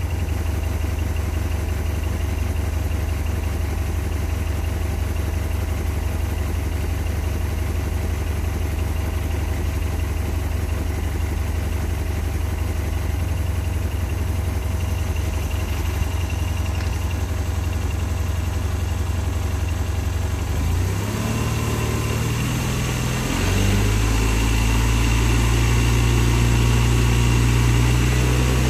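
Honda Silver Wing scooter's parallel-twin engine idling steadily, then raised in two steps after about twenty seconds and held at around 4,000 rpm, revved to bring the battery charging voltage up.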